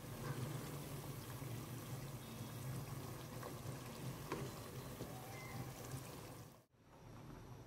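Chicken simmering in a pot of bubbling liquid while it is stirred with a wooden spoon, over a steady low hum. The sound cuts off sharply near the end and comes back quieter.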